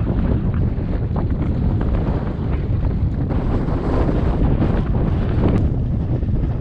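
Wind buffeting the microphone in heavy, uneven gusts over open water, with irregular splashes of water against the kayak.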